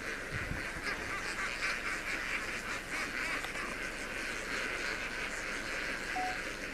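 A large flock of lesser and greater flamingos calling, a continuous chorus of many overlapping honking calls.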